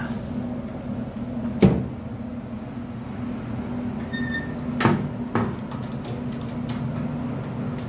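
Metal locker doors being worked by their lever handles, opened and shut with sharp clanks: the loudest about a second and a half in, two more around five seconds, over a steady low hum.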